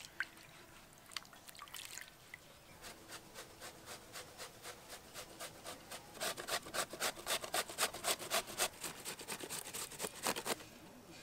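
Raw green mango being grated on a handheld metal grater: rhythmic rasping strokes, about three to four a second, louder from about halfway through and stopping shortly before the end.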